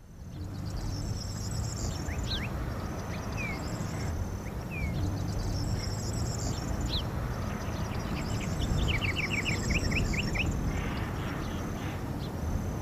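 Birds calling in open country: scattered short chirps and quick falling whistles, with a fast run of about nine notes a little past the middle, over a steady low rumble.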